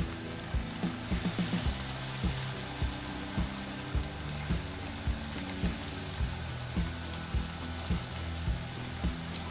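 Batter-coated cauliflower frying in hot oil, a steady crackling sizzle, under background music with a steady beat of roughly two beats a second.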